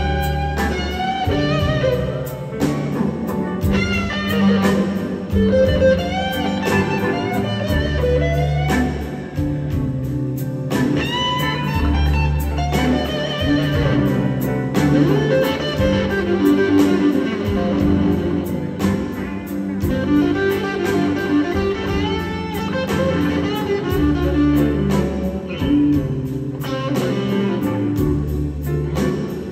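Live band playing a slow blues, with an electric guitar taking a lead solo of bent, wavering notes over bass, drums and keyboards.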